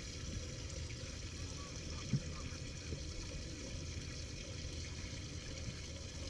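Steady low rumble of wind and lapping water, with one faint click about two seconds in.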